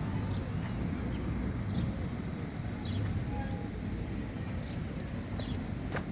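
Steady low rumble of a moving vehicle. Faint short bird chirps come through now and then, and a sharp click sounds near the end.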